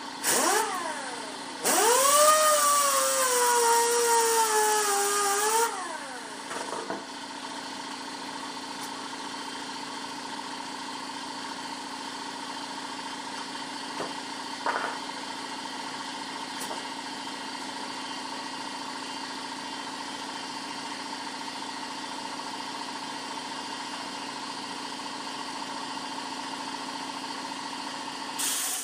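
Electric grinder running and grinding fiberglass off a grille edge, its whine rising and sagging in pitch as it bites. There is a short burst about a second in, then a longer run that winds down after about six seconds. After that a steady hum carries on.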